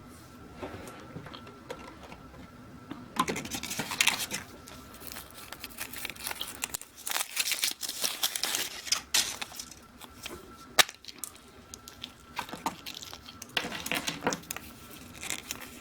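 Crinkling and tearing of the foil wrapper being peeled off a chocolate surprise egg, starting about three seconds in, with a few sharp clicks among the rustling.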